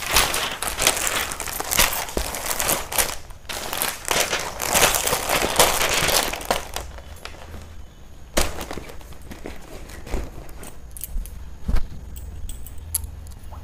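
Plastic clothing packaging rustling and crinkling as garments are handled and set aside. About seven seconds in it goes quieter, leaving a few scattered clicks and taps.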